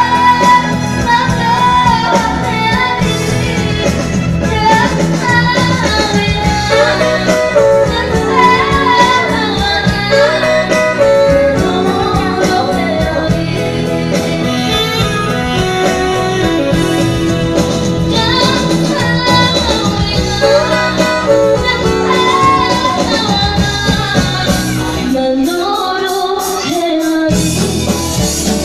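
A young girl sings a song through a microphone and loudspeakers over amplified band accompaniment. A few seconds before the end, the low backing briefly drops away and her voice carries on alone before it returns.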